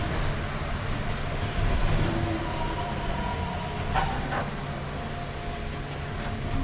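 Tateyama Tunnel Trolleybus, a rubber-tyred electric trolleybus, heard from inside the cabin: a steady low hum with faint steady tones above it, and a couple of short clicks about one and four seconds in.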